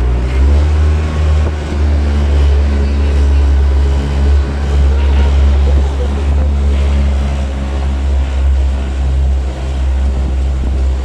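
Engine of an outrigger boat (bangka) running under way, a steady low rumble that grows louder about half a second in.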